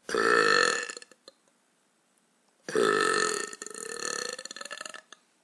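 A woman burping twice: a short burp of about a second, then a longer one of about two seconds that rises slowly in pitch and turns choppy near its end.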